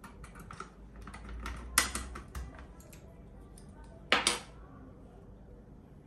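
Small plastic clicks and clacks of a wire keycap puller and keycap on a Melgeek Mojo 60 mechanical keyboard as a keycap is pulled off. Two clacks stand out, a little under two seconds in and just after four seconds.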